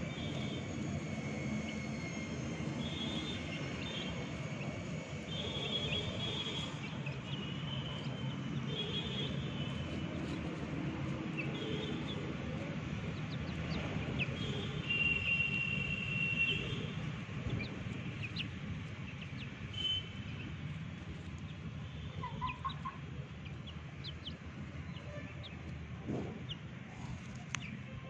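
Chickens calling, with short high cheeps every second or two that thin out in the second half, over a steady low background rumble.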